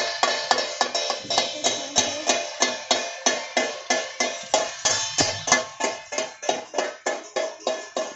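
Metal struck by hand in an even rhythm, about four ringing clangs a second and slowing slightly near the end, like a steel plate beaten with a spoon or a hand bell being rung.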